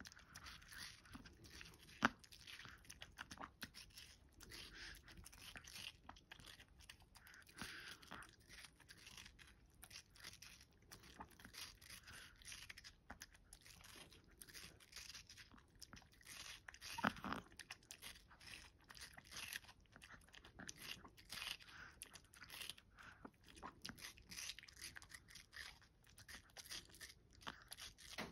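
Long-coat Chihuahua biting and chewing watermelon flesh: a quiet, irregular run of small wet crunches. One sharp crunch comes about two seconds in, and a louder one a little past the middle.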